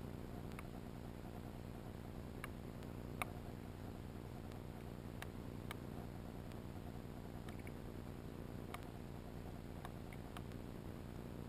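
Underwater sound over an oyster bed: a steady low hiss and rumble, with scattered sharp clicks at irregular intervals, the loudest about three seconds in.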